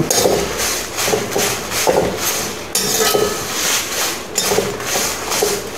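A metal spatula stirring and scraping dried red chillies with mustard and fenugreek seeds around a steel pan as they roast, the strokes coming about two a second.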